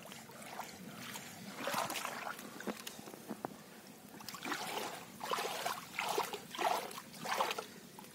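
Pond water splashing and trickling inside a fine-mesh fishing net full of small fish as the net is handled, in uneven bursts with a few sharp little clicks.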